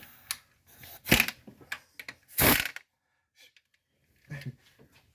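Metal hand tools and engine parts being handled: scattered clicks and knocks, with a louder scraping clatter about two and a half seconds in, then a few faint ticks.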